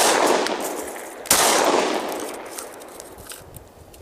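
Two pistol shots from a foil-wrapped 10mm Glock 20, one at the start and one about a second and a half later, each followed by a long, fading echo. After the second shot the pistol stops firing, with a spent case caught in the ejection port: a failure to eject caused by the tin foil.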